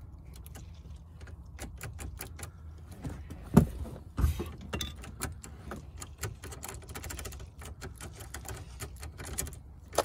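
A key being jiggled and turned in a 2001 Saturn's ignition lock cylinder, a run of small metal clicks with the keys on the ring jangling, and louder knocks about three and a half and four seconds in. The cylinder is worn and the key sticks, so it has to be worked around to find the sweet spot where it will turn.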